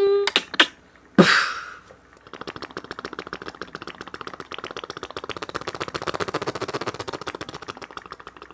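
Beatboxer's mouth-made sound effects: two quick clicks, a sharp hit with a falling sweep, then a long, fast, even run of clicks like typing on a typewriter.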